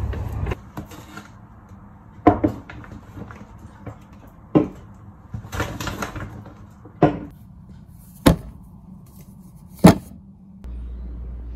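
About six separate sharp knocks and clunks, spaced a second or two apart, each ringing briefly. Near the end a steady low rumble starts abruptly.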